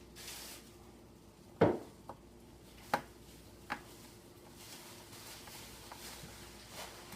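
Small sharp clicks and knocks, the loudest about one and a half seconds in and three more over the next two seconds, with faint rubbing between: a screwdriver driving a small screw into a laptop's LCD screen frame and the plastic parts being handled.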